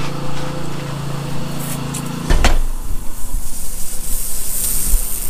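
A steady low machine hum, then about two seconds in a loud, uneven hiss of water spraying from lawn irrigation sprinklers as a zone runs.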